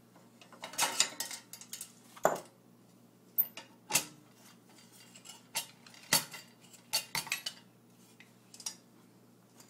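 Irregular light metallic clicks and clinks, about a dozen scattered through, as the metal case, wire pot support and burner parts of an unlit Optimus 111 box stove are handled.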